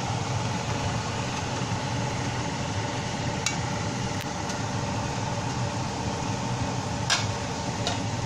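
Chili-garlic paste frying over high heat in a nonstick pan: a steady hiss under a constant background hum, with a few light clicks of the silicone spatula against the pan.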